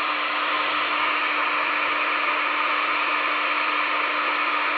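Steady hiss of static from a CRT SS 9900 CB radio tuned to 27.735 MHz in upper sideband, with a constant low tone under the hiss.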